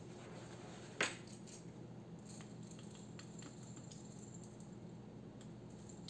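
A jar of peppercorns being handled over a steel saucepan: one sharp click about a second in, then faint scattered light ticks and clinks, over a faint steady hum.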